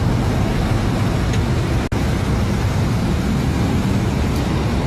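Sport motorcycle engine idling steadily under road traffic noise, with a brief dropout about two seconds in.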